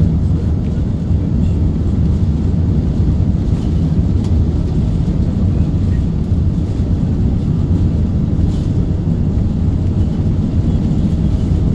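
Airbus A380's Rolls-Royce Trent 900 engines and rushing air heard inside the rear passenger cabin during takeoff: a loud, steady, low rumble.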